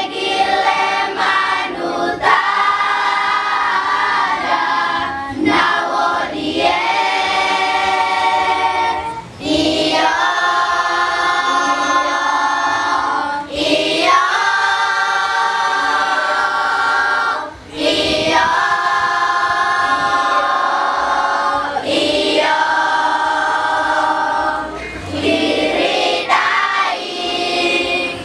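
Mixed youth choir singing unaccompanied in several parts, holding chords in phrases with brief pauses between them.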